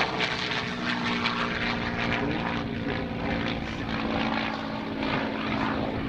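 P-51D Mustang's Packard-built Merlin V12 engine and propeller droning steadily in flight.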